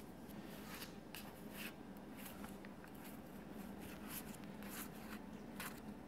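Trading cards being slid and flipped past one another in the hands: faint, soft swishes at irregular intervals.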